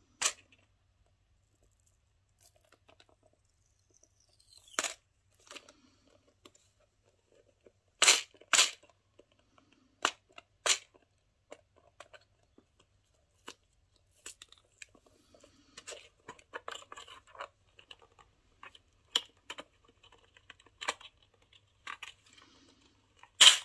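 Plastic packaging being handled and opened by hand: scattered sharp plastic clicks and snaps, a dozen or so, with crinkling and tearing in between.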